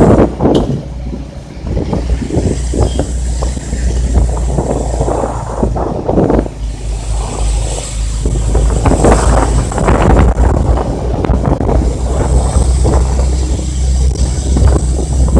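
Vehicle road noise with a steady low drone, overlaid by irregular gusts of wind buffeting the microphone.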